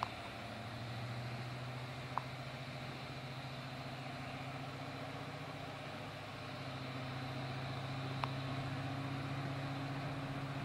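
Class 55 Deltic diesel locomotive, with twin Napier Deltic two-stroke engines, running steadily out of sight as its train of Mark 2 coaches moves past. The drone gets a little louder about two-thirds through, and a couple of short high squeaks come through.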